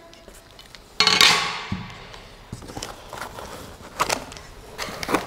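Unpacking noises as a flat aluminium 3D-printer bed plate is lifted from its cardboard box and laid on a glass tabletop: a loud scrape or rustle about a second in that fades over about a second, then scattered light knocks and clicks.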